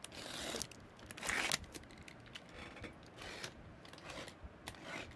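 A series of short, faint scraping and tearing sounds as the plastic shrink wrap on a sealed trading-card box is cut and pulled off.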